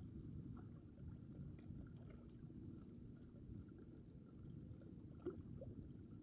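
Faint, steady low rumble of seaside outdoor ambience on an action camera's built-in microphone, with a few faint ticks and a small click about five seconds in.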